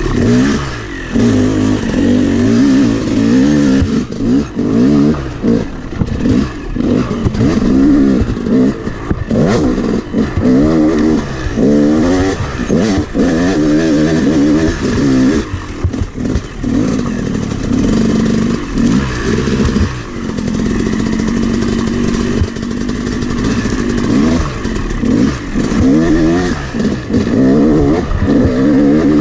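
Freshly rebuilt 2011 Yamaha YZ250 two-stroke engine being ridden on a dirt trail, revving up and down with the throttle every second or two, with occasional knocks from the bike over rough ground.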